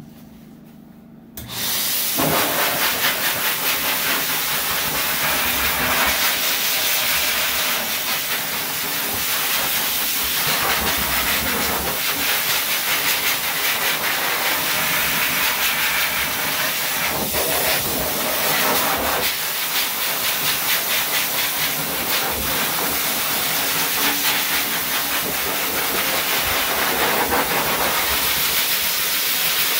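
High-velocity pet dryer switched on about a second and a half in, then blowing a loud, steady rush of air through its hose and nozzle as it dries a dog's coat, the sound shifting slightly as the nozzle moves over the fur.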